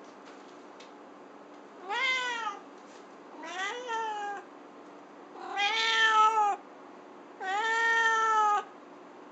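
Russian Blue cat meowing four times, a second or two apart. The first two calls are short and rise in pitch; the last two are longer, about a second each, and louder.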